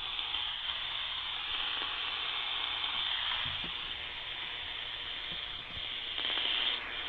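Steady static hiss from an AM radio tuned to the top of the band, where no station is coming in.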